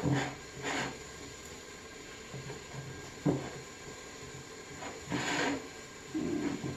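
Hands rubbing sticky caramel around the inside of a flan mould: soft smearing and rubbing noises that come in short bursts a second or two apart.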